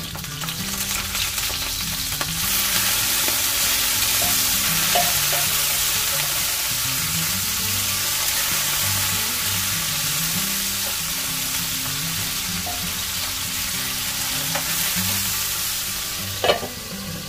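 Salmon steaks sizzling as they fry in oil in a pan, a steady hiss that grows louder about two seconds in. A single sharp knock comes near the end.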